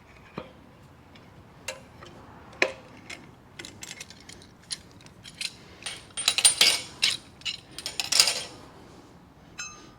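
Small steel tools and parts being handled: scattered clicks and clinks, a busy run of metallic clattering from about six to eight and a half seconds in, and a short metallic ring near the end.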